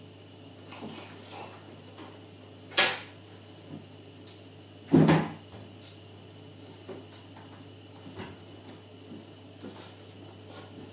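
Cookware and utensils being handled at a kitchen counter during cooking, with small clicks throughout. There is a sharp clatter about three seconds in and a heavier knock about two seconds later, over a steady low hum.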